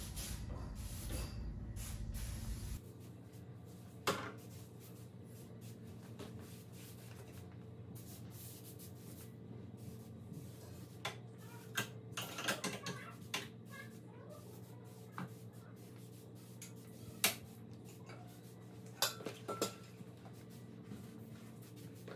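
A B&G pressurized sprayer hissing as insecticide is sprayed, cutting off about three seconds in. Then scattered clicks and light metallic clinks as the wand and hose are worked around the recliner's metal frame, over a steady low hum.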